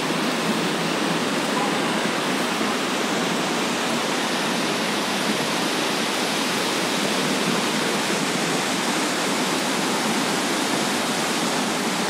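Water pouring down the canal's artificial waterfall: a steady, even rush of falling water.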